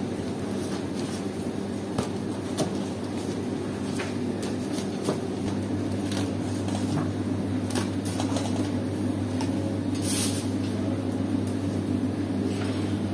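Steady low hum of kitchen machinery, with scattered light clicks and taps as food is handled into aluminium foil trays, and a brief louder rustle about ten seconds in.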